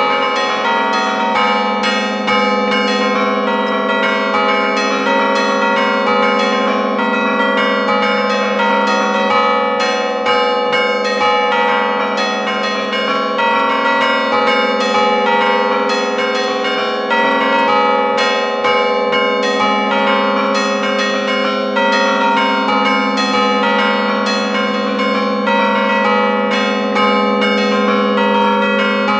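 A five-bell chime in A-flat, cast by Giorgio Pruneri in 1907, with its heaviest bell sounding about A-flat 3. The stationary bells are struck by hand-pulled clappers in quick, continuous melodic strokes, Bergamasque 'allegrezze' style. Heard close up inside the bell chamber, the strokes overlap into a dense, unbroken ringing.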